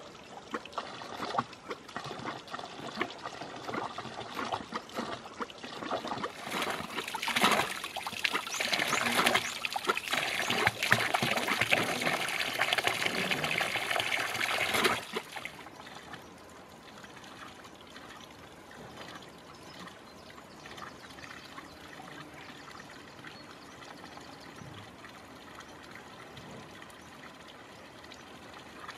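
Water splashing from a metal spout into a wooden log trough fountain. It is louder for about the first half, then drops to a quieter, steady trickle.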